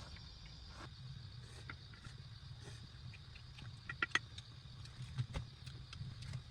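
Insects, crickets by their steady high drone, singing without pause, with scattered sharp clicks and light knocks, the loudest about four seconds in.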